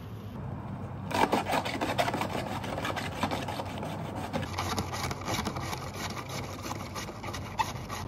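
A cabbage being shredded on a plastic mandoline-style slicer over a storage container: rapid, repeated rasping strokes of the cabbage across the blade, starting about a second in.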